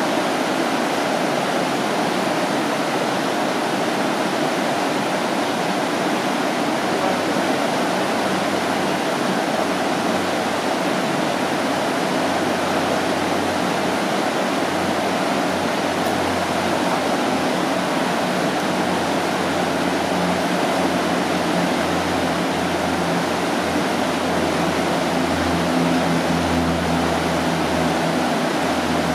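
Whitewater rapids of the Dosewallips River rushing over rocks in a steady, even roar, with a low rumble coming up in the second half.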